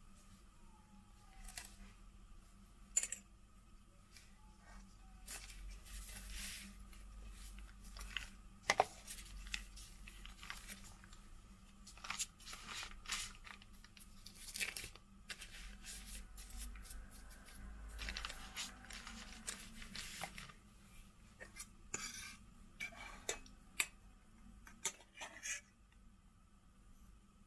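Baking parchment rustling and crinkling as puff pastry is folded, pinched and moved about on it by hand, in many short, irregular rustles with a few sharper taps, over a faint low hum.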